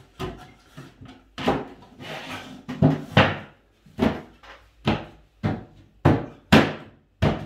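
A wooden aquarium canopy box being flipped over and shifted about on a tiled floor: a series of knocks and thuds of wood on the floor, about ten in all, with a short scrape about two seconds in.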